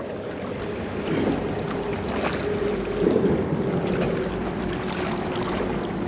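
Wind buffeting the microphone over flowing river water, a steady rushing noise with a faint steady hum underneath.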